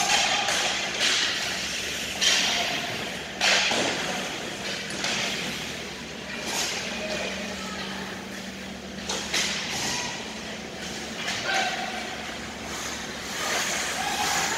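Ice hockey play: skates scraping and cutting on the ice in repeated hissing strokes, a sharp knock about three and a half seconds in, and distant shouts over a steady low hum.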